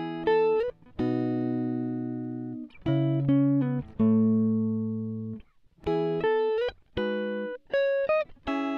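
Background music: plucked, guitar-like notes and chords, each struck sharply and dying away.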